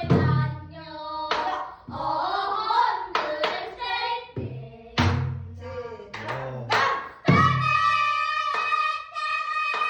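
Pansori singing with long held, bending notes. Sharp knocks and low thuds come at uneven intervals under the voice, in the manner of buk drum accompaniment.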